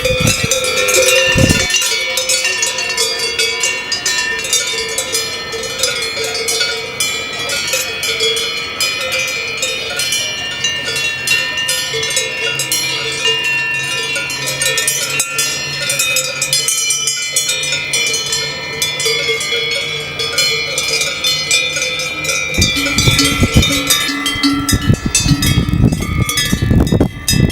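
Many cowbells on cows clanking and ringing together in a continuous jangle of several pitches. A low rumble joins in near the end.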